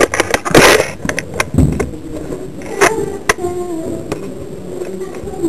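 Close rustling, scraping and knocking of clothing and gear against the microphone, with a few sharp clicks, as the camera is handled and carried in the dark.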